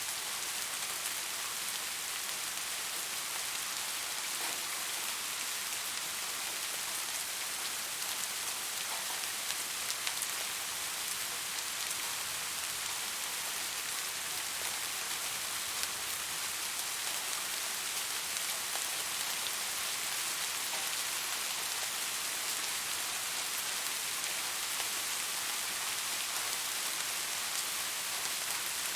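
Steady rain falling, an even hiss with many fine drop ticks, and no thunder or other sounds.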